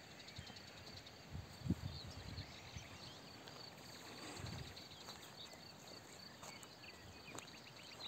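Faint countryside ambience: distant birds chirping and small ticking calls, with a few brief low wind bumps on the microphone.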